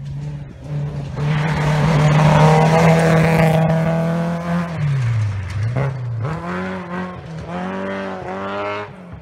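Rally car on a gravel special stage, engine held at high revs as it approaches and passes. About five seconds in the revs dip and recover, then rise and fall a few more times as it pulls away, fading near the end.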